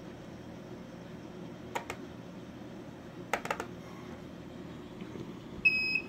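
Computer mouse clicks on a laptop, two about two seconds in and a quick cluster in the middle, over a faint steady hum. Near the end comes a short, high electronic beep, the loudest sound, as the AK-90 key programmer starts reading a key.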